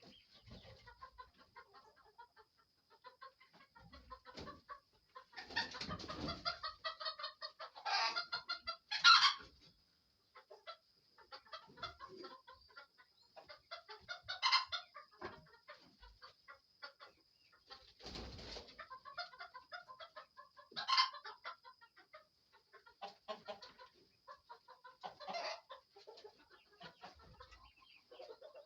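Chickens clucking and calling on and off, with a few louder squawks about 8, 9, 14 and 21 seconds in.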